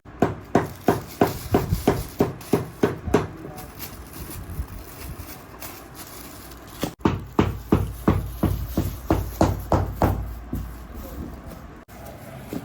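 Rapid hammer taps, about four or five a second, in two runs of a dozen or so strikes with a pause between them, typical of hammering on a shoe during repair.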